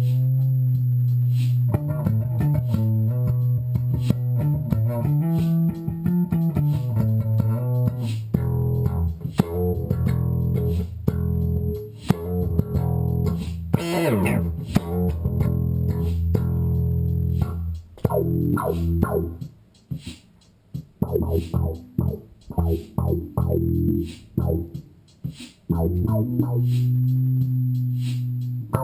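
Electric bass guitar played solo in funk lines: held low notes through the first half, then short, clipped notes with brief gaps in the second half.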